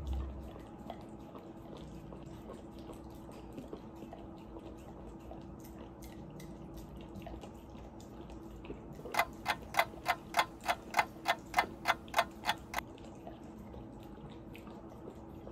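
A run of about a dozen sharp clicks at an even pace, roughly three a second, lasting about four seconds, over a faint steady hum.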